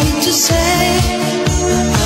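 Background music with a steady beat, about two bass thumps a second under sustained melody notes.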